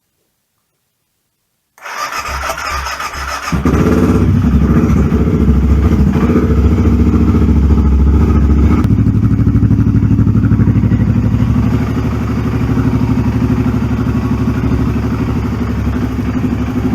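BMW F650 GS motorcycle with a Staintune aftermarket exhaust cranking on the starter about two seconds in, catching after a second or two and settling into a loud, steady idle. The engine has just been refilled with fresh oil after an oil change and is being run to circulate it.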